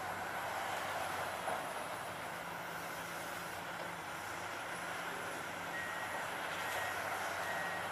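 Komatsu PC400LC hydraulic excavator's diesel engine running steadily under work. About six seconds in, a backup alarm starts beeping, roughly once a second.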